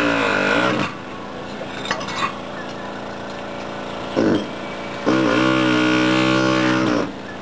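Gison GPW-4500 pneumatic air hammer (4500 blows per minute) driving a chisel bit to chip ceramic tiles off a concrete surface. It runs in trigger bursts with a steady pitched buzz: a run that stops under a second in, a short burst around four seconds, then a longer run of about two seconds that stops near the end.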